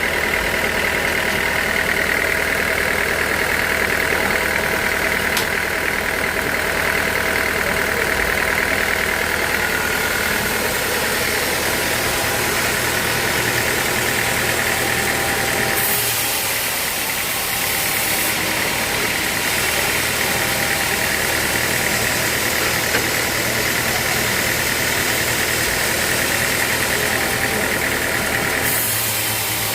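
Sawmill machinery running steadily: a constant engine-like drone with a higher whine over it that changes character about halfway through and again near the end.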